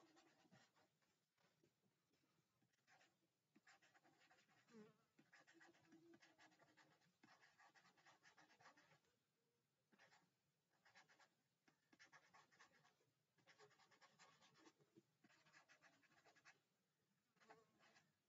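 Faint scratching of a stylus writing by hand on a tablet surface, in bursts of quick strokes with short pauses between words.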